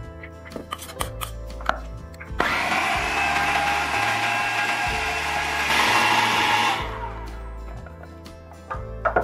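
Electric food processor motor running for about four seconds, its blade grinding boiled chana dal into crumbs. The sound gets louder near the end of the run, then the motor spins down.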